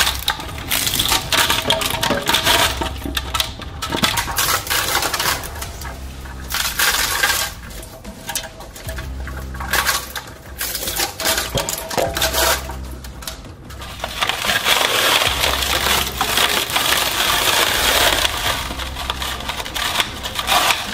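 Twin-shaft shredder's cutter discs tearing into a soft orange spiky toy ball: dense crackling and crunching over the low hum of the machine, easing off for a few seconds past the middle, then picking up again.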